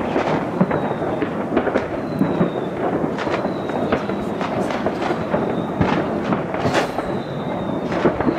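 Fireworks going off: dense crackling with many sharp pops and bangs.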